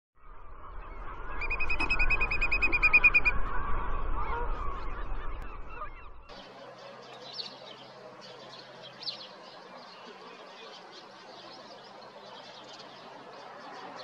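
A loud sound of unknown source, with a rapid pulsing high tone over a low rumble, lasts about six seconds and cuts off suddenly. After it comes a much quieter outdoor ambience with a few short, faint bird calls.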